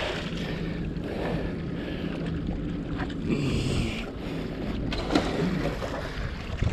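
Wind buffeting the microphone and water washing against the pier's rocks, under a low steady hum that fades about halfway. A few short clicks come about three and five seconds in.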